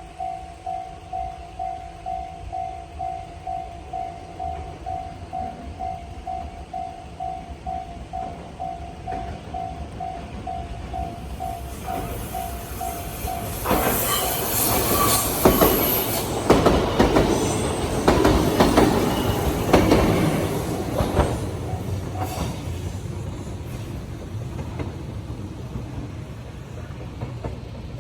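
Japanese level-crossing warning bell ringing in a steady ding-ding of about two strokes a second, until a train arrives about halfway through. The train passes over the crossing loudly, with wheels clacking over the rail joints and a brief high squeal, and fades away toward the end.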